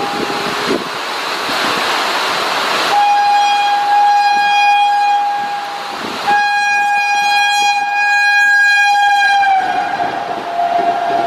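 WAP-4E electric locomotive's horn sounding two long blasts as the train comes through at speed, the second blast dropping in pitch near the end as the locomotive passes. A steady rushing noise comes before the first blast.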